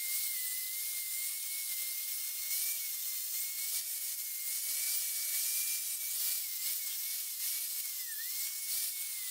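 Small high-speed power tool running with a steady high whine and a hiss, its pitch dipping briefly several times in the second half.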